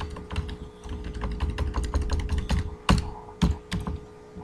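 Typing on a computer keyboard: an irregular run of key clicks as a line of text is deleted and a short word typed, the loudest strokes about three seconds in. A low rumble sits under the keystrokes through the first half.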